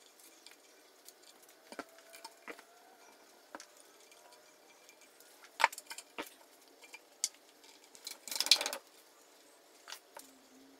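Scattered light clicks and knocks of workshop handling, with a short scraping rustle about eight seconds in.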